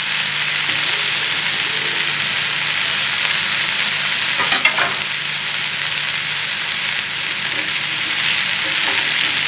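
A mixed-sprouts dosa frying on a hot tawa, second side down: a steady sizzling hiss over a faint low hum.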